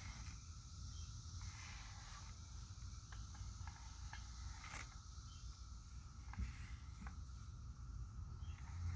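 Faint soft scratching of a Hertzko slicker brush's wire bristles drawn through a cat's fur, a few separate strokes, over a low handling rumble and a steady high hiss.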